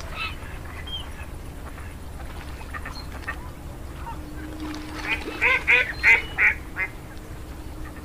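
Flock of white domestic geese calling: a few scattered short calls, then a run of five or six loud honks in quick succession about five seconds in.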